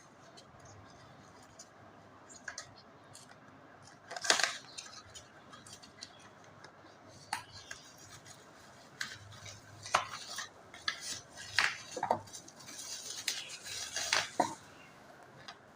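Objects being handled: scattered light clicks, knocks and clinks, one loud knock about four seconds in and a busier run of them from about nine to fifteen seconds in.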